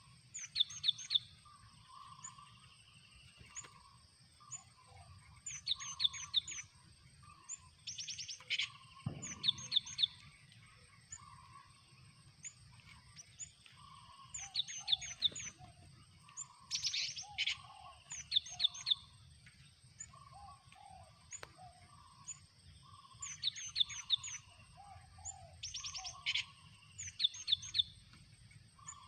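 Cinereous tits (gelatik batu) calling around a decoy trap cage: bursts of rapid high chattering notes every two to three seconds, with short lower calls in between. A steady thin high tone runs underneath.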